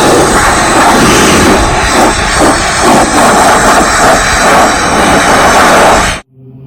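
Pressure washer running and spraying, a loud steady rush of motor and water jet that cuts off abruptly near the end.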